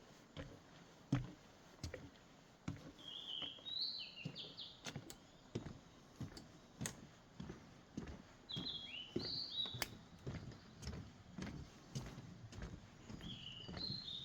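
A songbird singing three short bursts of quick chirping notes a few seconds apart. Under the song runs a regular patter of footsteps on a path.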